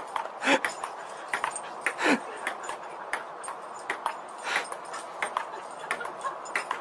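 A dog giving three short calls, one of them sliding down in pitch, over a steady patter of light clicks.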